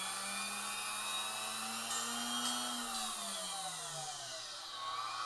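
Hoover Vision 12-amp vacuum cleaner motor, a brushed motor with its brush springs padded for extra brush pressure, running free at high speed with a high-pitched whine. The pitch holds steady for about two and a half seconds, then drops as the motor slows.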